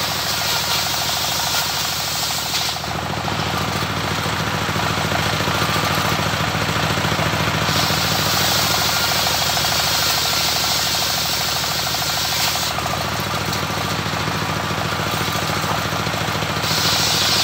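Homemade bench circular saw driven by a single-cylinder diesel engine, the engine running with a steady fast knocking beat. A bright hiss from the blade comes in three stretches of several seconds, at the start, in the middle and near the end, as planks of waru wood are pushed through it.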